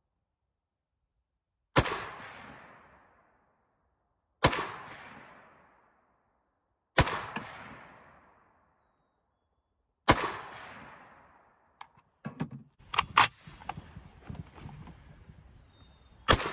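Five single shots from a PSL-54C semi-automatic rifle in 7.62x54R, each trailing off in a long echo; the first four come about two and a half to three seconds apart. Between the fourth and fifth shot there is a quick run of sharp clacks.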